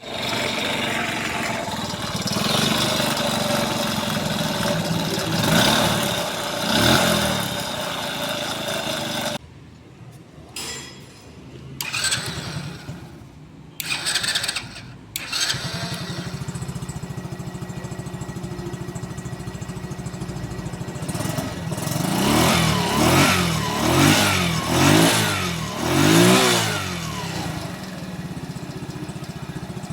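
Kasinski motorcycle engine running and blipped a couple of times, stopping for several seconds with a few short noises, then running again and revved four or five times in quick succession. The abnormal engine noise comes from a worn, corroded connecting rod knocking and a crankshaft support bearing with a damaged ball race, as the mechanic later diagnoses.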